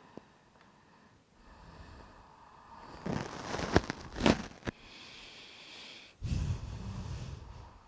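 A person breathing out audibly twice: a noisy exhale with a couple of sharp clicks about three seconds in, and a longer, deeper exhale about six seconds in.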